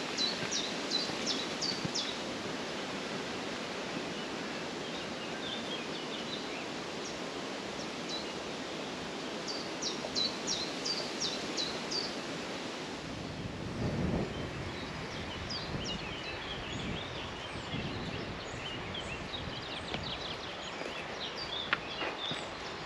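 Countryside ambience with a steady hiss. A songbird sings a short phrase of about six quick high notes twice, with scattered chirps later. Irregular low rumbles come in about halfway through.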